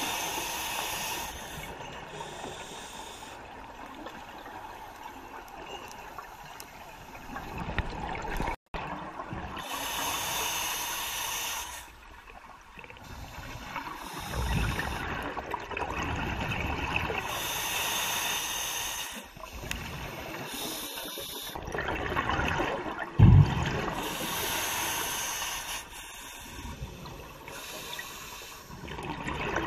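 Scuba diver's breathing heard underwater through the regulator. A hissing inhale through the demand valve alternates with a rush of exhaled bubbles, in slow breaths roughly every seven to eight seconds, with the loudest bubble burst a little past two-thirds of the way through.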